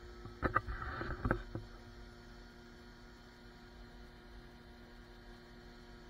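John Deere combine harvester running while its unloading auger empties shelled corn into a grain truck: a steady mechanical hum. A few sharp knocks sound in the first second and a half.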